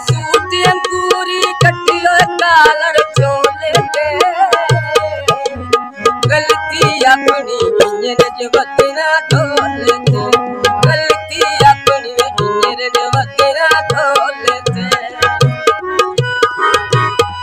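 Tabla and harmonium playing Punjabi folk music together: the harmonium holds sustained chords under a melody, and the tabla keeps a rhythmic pattern of sharp strokes with deep bass-drum strokes recurring about every half-second to second.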